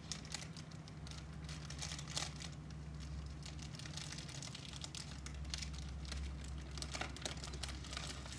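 Large plastic chip bag crinkling and crackling irregularly as it is handled, over a steady low hum.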